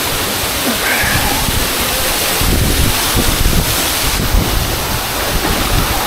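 Waterfall pouring into a pool: a steady, full rush of falling water, with a heavier low rumble from about two and a half seconds in.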